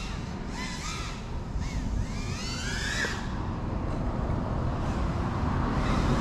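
FPV quadcopter's motors whining, the pitch swooping up and down as the throttle is worked, with one long rise about two to three seconds in, over a steady low rumble.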